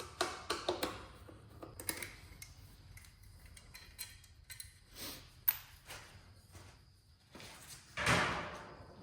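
Scattered light clicks and knocks of hand work on a motorcycle, as its small plastic side covers are taken off. A sharp click comes about five and a half seconds in, and a louder brief rush of noise about eight seconds in.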